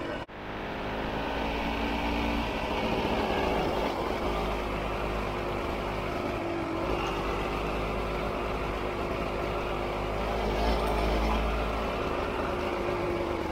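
Honda CRM250's two-stroke single-cylinder engine running under way along a dirt track, a steady engine note with small rises and falls in pitch. A brief break just after the start.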